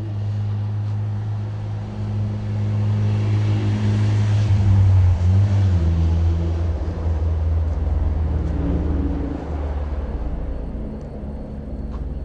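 A motor vehicle's engine running steadily. It grows louder about halfway through and its pitch drops.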